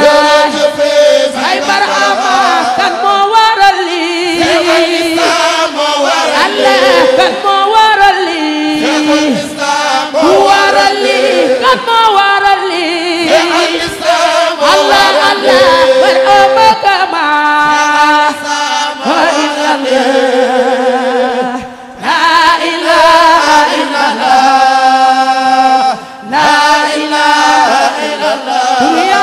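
A choir chanting together behind a female lead singer, voices carrying a devotional melody, breaking off briefly twice in the second half.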